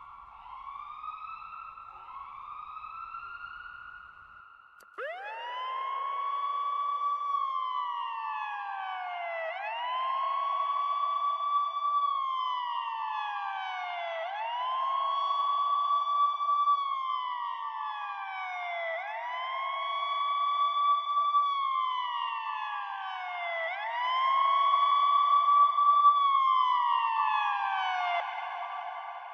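Police car siren. First, for a few seconds, it plays quicker short rising sweeps at a lower level. About five seconds in it switches to a louder wail: each cycle rises fast, holds its high pitch, then glides slowly down, repeating about every four and a half seconds.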